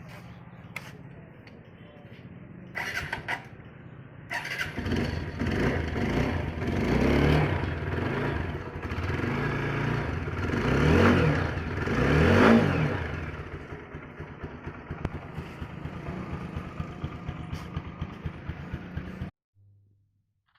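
TVS Apache RTR 160 4V single-cylinder motorcycle engine idling, then revved up and down a few times before settling back to idle. The sound cuts off suddenly near the end.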